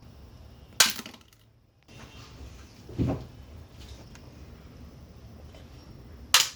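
Paper being folded and handled: a sharp snap about a second in, a duller thump around three seconds, and another sharp snap near the end.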